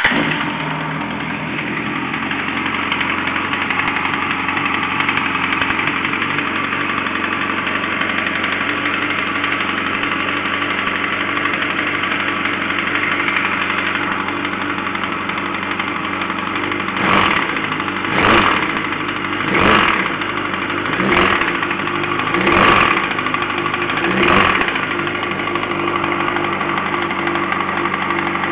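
2005 Yamaha R1's inline-four engine idling with a knocking noise, then blipped six times, about a second and a half apart, in the second half. The knock is still there with a manual cam chain tensioner fitted, and the owner suspects a spun rod bearing.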